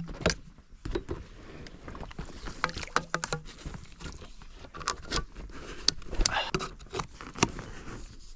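A small boat being paddled on a creek: irregular knocks and clicks of the paddle against the boat, with water splashing and sloshing.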